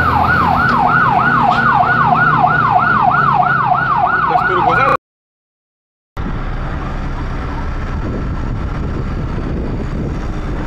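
Fire engine siren on a fast yelp, rising and falling about three times a second, cutting off suddenly about five seconds in. After about a second of silence, a steady rushing noise follows.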